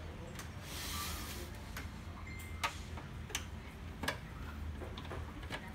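Screwdriver and hands working the plastic frame of an HP LaserJet M135a printer: scattered light clicks and taps, roughly one a second, with a brief scraping rustle about a second in.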